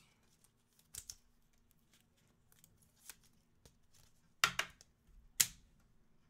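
Trading cards being handled: a few soft rustles and clicks, then two short sharp swishes about a second apart, over a faint steady hum.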